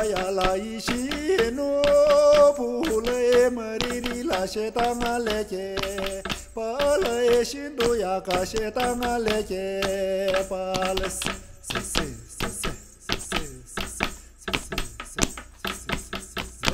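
Singing of a Tibetan drum-dance song over quick, regular percussive strikes. The singing stops about eleven seconds in, and the strikes carry on alone.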